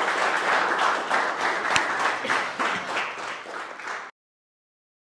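Audience applauding, a dense patter of many hands clapping that thins and fades, then cuts off abruptly about four seconds in.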